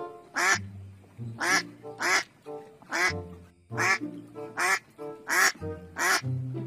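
Duck quacking: about eight loud, short quacks at fairly regular intervals, often in pairs, over background music with low held notes.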